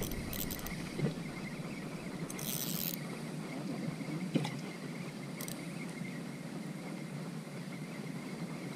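Insects chirping steadily in the background, with a light knock about a second in and a sharper one a few seconds later.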